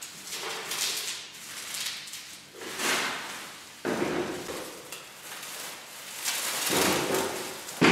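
Clear plastic wrapping rustling and crinkling in irregular bursts as it is handled and pulled off a sculpture, loudest in the last couple of seconds, with a sharp knock at the very end.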